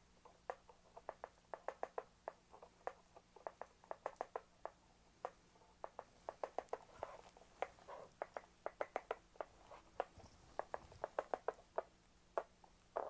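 Fingers tapping and clicking on the buttons and touch-key step strip of a Korg Volca Beats drum machine: many quick, irregular clicks, often in rapid runs.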